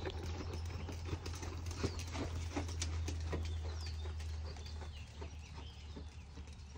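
Horse's hooves striking sand arena footing in a series of knocks that fade after about four seconds as the horse goes past. Birds chirp now and then.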